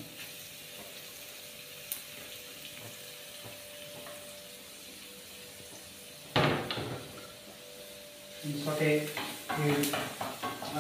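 Chopped onion and garlic sizzling quietly in olive oil in a stainless steel frying pan as they sauté. A sudden knock about six seconds in, and a man's voice near the end.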